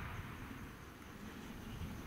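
Faint low rumble, with the last of a .44 Magnum shot's echo fading out at the start.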